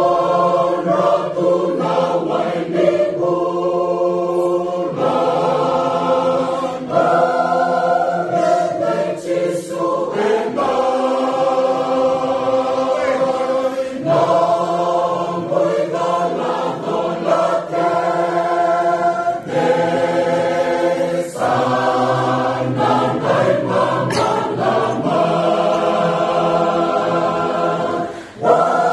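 Mixed choir of men's and women's voices singing unaccompanied in held, multi-part chords, phrase after phrase with short breaks between them and a brief pause near the end.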